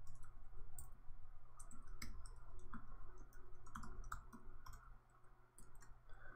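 Computer keyboard keys clicking as code is typed, in irregular runs of several keystrokes a second, thinning out near the end.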